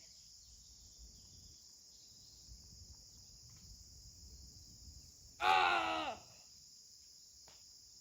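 Steady high chirring of crickets and other insects, with one loud, short cry about five and a half seconds in.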